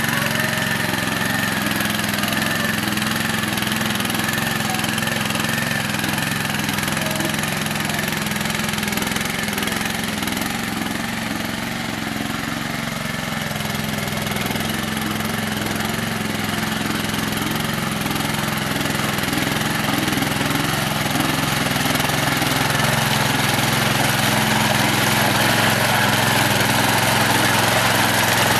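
Small petrol engine of a walk-behind rotary tiller running steadily under load as its tines work through wet paddy mud. It dips slightly about midway and grows a little louder near the end.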